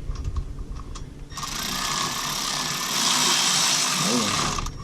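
A steady hissing noise that starts abruptly about a second in, runs for about three and a half seconds, then cuts off.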